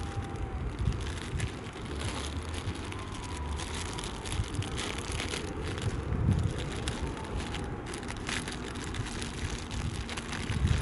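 Wind rumbling on the microphone over a continuous hiss and crackle of sea waves washing over shingle.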